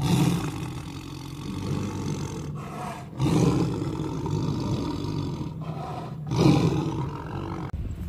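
Tiger roaring: three long, low calls of two to three seconds each, with short breaks between them.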